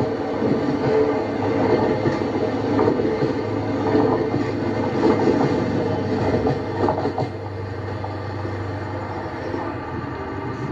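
Articulated Talgo passenger coaches rolling past at speed, their wheels clattering and knocking over the rail joints. About seven seconds in the clatter stops as the train clears, leaving a quieter steady rumble.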